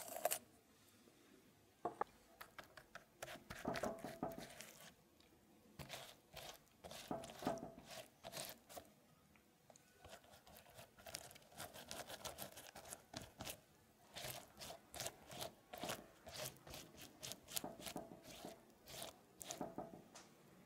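A silicone pastry brush dabbing and stroking sticky glaze over the pecan halves of a tart: many short, wet taps and scrapes in quick runs. A sharp knock comes at the very start.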